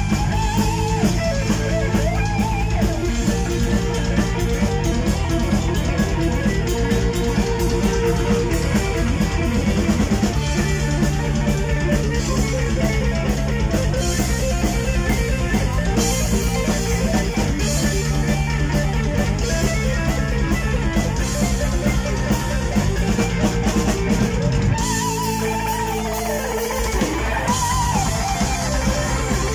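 Heavy metal band playing live: distorted electric guitars over a drum kit, with a lead guitar bending notes. About 25 seconds in, the low end thins out briefly while the bent lead notes carry on.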